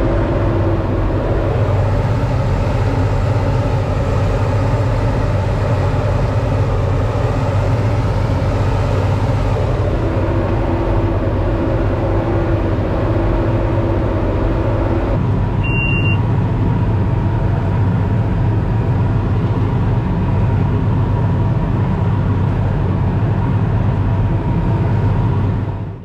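Tractor engine running steadily under load while pulling a big square baler, heard from inside the cab. One part of the hum drops away about fifteen seconds in, and a single short electronic beep sounds just after.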